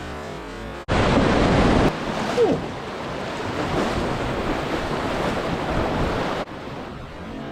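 Loud, steady rushing of whitewater rapids, cutting in abruptly about a second in and cutting off just as suddenly near the end.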